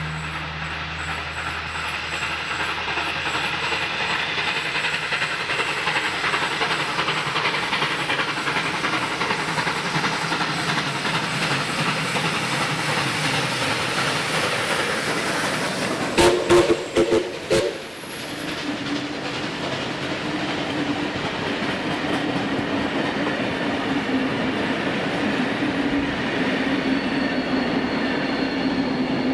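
Steam locomotive 5917, a 59 class, running past with its train: a steady rumble of the locomotive and carriages on the rails with a hiss of steam, and a few short blasts on the whistle about halfway through.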